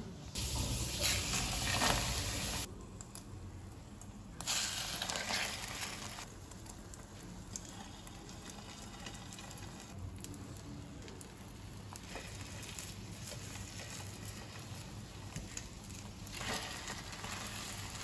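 Egg-soaked bread frying as French toast in a pan, with a steady sizzle that gets louder in a few stretches.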